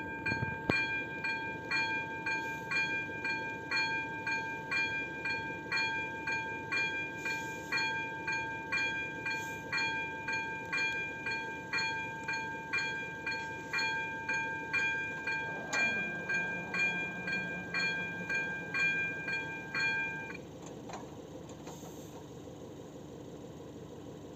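Electronic warning bell of a level crossing with AŽD 97 signals, ringing in rapid even strikes of about two a second. About two-thirds of the way through, a lower hum sets in as the barrier drive lowers the boom. Soon after, the bell stops.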